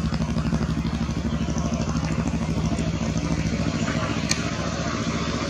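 A motor vehicle's engine idling steadily with a low, even throb, and a single faint click about four seconds in.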